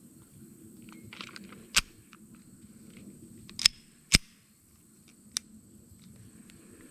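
Sharp mechanical clicks from handling a Ruger SR22 .22 pistol before firing: four distinct clicks at irregular intervals, with a few lighter ticks before the first, over a faint low background rumble.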